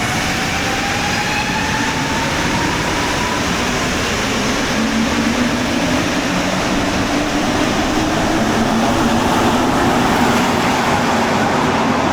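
Rubber-tyred Montréal Metro train running, a steady loud rush with a motor whine rising in pitch as it gathers speed.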